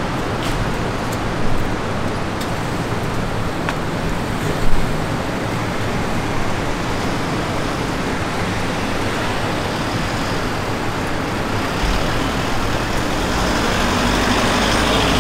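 City street traffic noise: a steady hiss of passing vehicles with a few sharp clicks in the first few seconds. A heavier vehicle's low engine rumble grows louder near the end.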